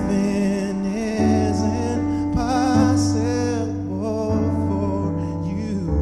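Music: a melody line with vibrato over sustained low notes.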